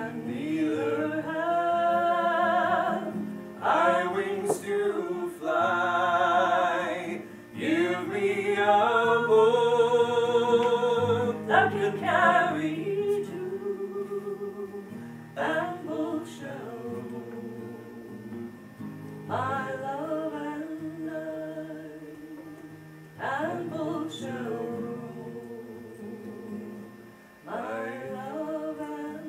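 A woman singing in phrases with a wavering vibrato, accompanied by two acoustic guitars.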